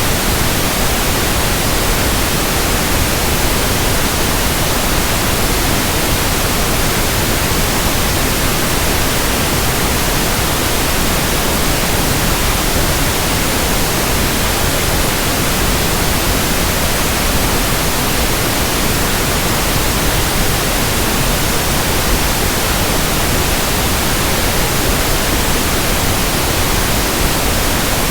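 Steady, loud pink noise: an even, unbroken hiss spread across the whole range of pitch, the kind used as a tinnitus sound-matching and masking sample.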